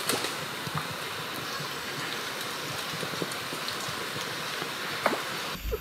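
Shallow creek water flowing over a sandy bed: a steady, even hiss with a few faint ticks.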